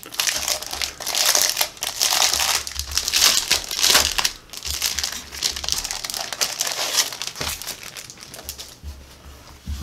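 Plastic shrink wrap crinkling as it is peeled off a cardboard sheet of game tokens, loudest in the first few seconds and easing off toward the end.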